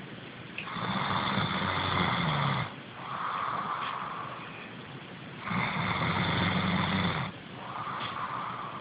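Snoring: two long snores on the in-breath, about five seconds apart, each followed by a softer breath out.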